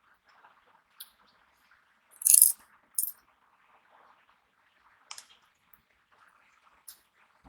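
Crisp snack being bitten and crunched in the mouth: a short crunch about a second in, a loud burst of crunching a little after two seconds and another just after three, then single crunches near five and seven seconds.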